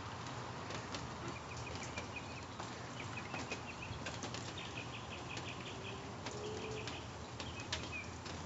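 Faint bird chirps repeating over a steady outdoor hiss, with scattered light taps.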